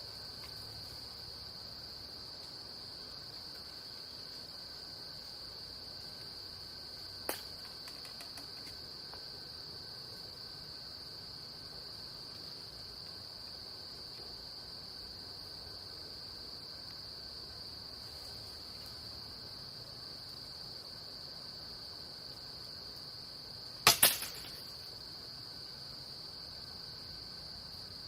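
Steady high-pitched insect chorus, like crickets, with a sharp click about seven seconds in and a louder pair of knocks about 24 seconds in.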